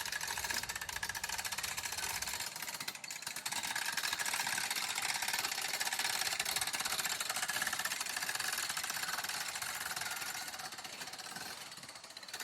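Several 12-foot tent-lifting jacks being worked at once, making a dense, fast clicking that eases off near the end as the frame tent is raised.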